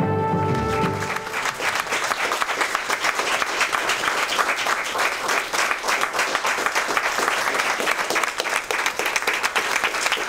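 Theme music ending about a second in, overlapped and followed by a room of people applauding steadily.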